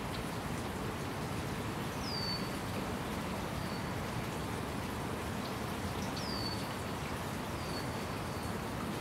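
Steady outdoor background hiss with a bird calling twice: a high whistle that slides down and levels off, about two seconds in and again about six seconds in, each followed by a fainter, shorter note.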